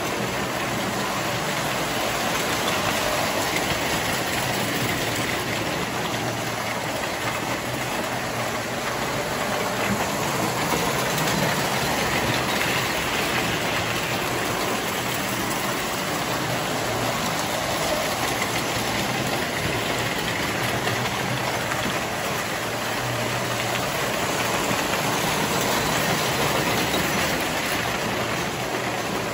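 Electric model trains running on three-rail O gauge track: a steady rumble of wheels on the rails and motors, swelling and easing as the locomotives pass.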